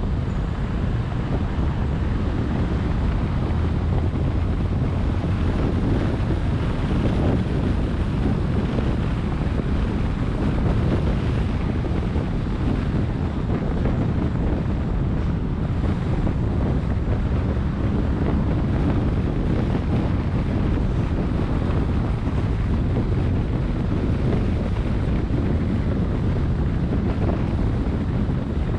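Steady wind noise buffeting the microphone, a continuous low rumble with hiss above it and no distinct events.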